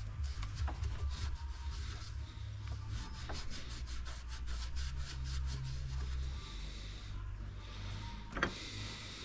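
Rubbing and scraping with a quick run of small clicks over a steady low rumble, and one sharp knock about eight and a half seconds in.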